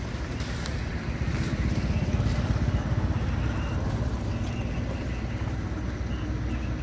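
Low, steady engine rumble that swells about one and a half seconds in and eases off again a couple of seconds later.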